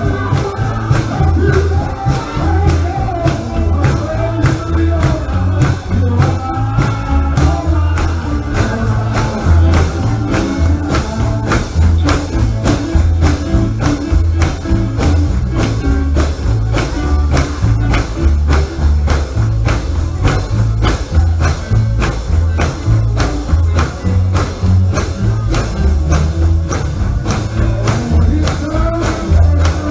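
Live gospel music: a band with heavy bass and a tambourine on a steady quick beat. Singing carries over it in the first several seconds and again near the end.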